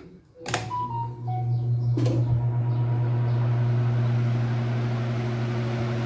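Lasko electric pedestal fan switched on with a click: its motor starts with a steady low hum and the blades spin up within a second or two, then run steadily with a whoosh of air. A second short click comes about two seconds in.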